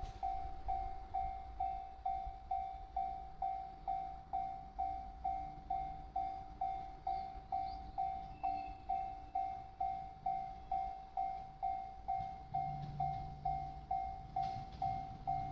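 Japanese railway level-crossing warning bell ringing: one electronic bell tone repeating about twice a second, each strike fading quickly. A train's low rumble comes in under it near the end.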